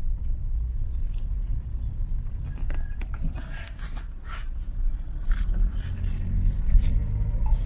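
Steady low rumble of a car driving along a road, heard from inside the cabin, with scattered light clicks and rattles over it.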